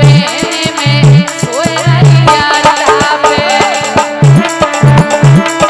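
Loud Indian folk devotional music (a dehati bhajan): a hand drum keeps a fast, steady beat with deep strokes that bend in pitch, under rattling percussion and a melody line.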